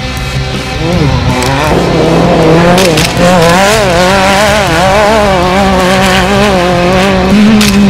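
Off-road race car engine running hard, loud, its pitch climbing about a second and a half in and then wavering up and down as the throttle is worked.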